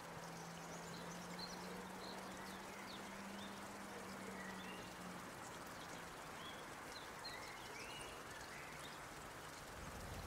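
Faint woodland ambience: a steady soft hiss with small birds chirping now and then, and a low steady hum that fades out about halfway through.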